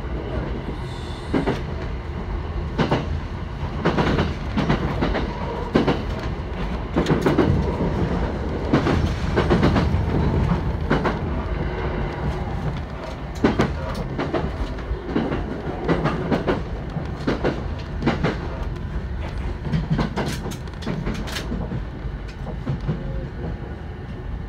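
Running sound of a JR East E129 series electric train: a steady low rumble of wheels on rail, with repeated clicks and knocks as the wheels pass rail joints.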